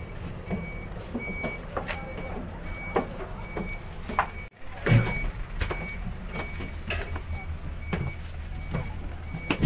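A high electronic beeper sounding steadily about twice a second, like a vehicle's reversing alarm, over a low engine rumble. Scattered knocks and footsteps on stairs, loudest a thump about five seconds in.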